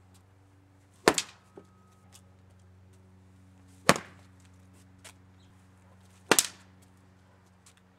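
A long wooden stick driven hard into a painted panel three times, each blow a sharp crack that punches a slit into the painting, about a second, four seconds and six seconds in. A steady low hum runs underneath.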